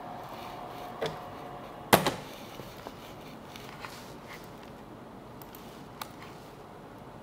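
A laser-marker enclosure door being shut: a click about a second in, then a louder knock at about two seconds as it closes. Light clicks of a laptop keyboard and mouse follow, over a faint steady tone that stops about a second in.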